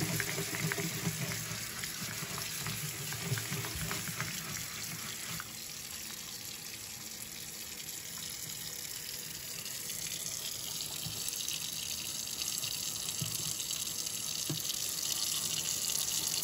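Kitchen faucet running a stream of water onto a wet maple wood cutting board while a hand rubs the board. The water runs steadily throughout; the rubbing is busier in the first few seconds.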